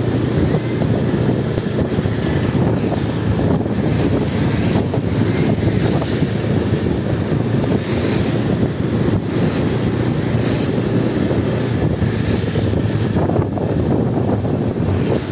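Motorbike engine running steadily while riding along a street, heard from on board the bike as a continuous drone mixed with road noise.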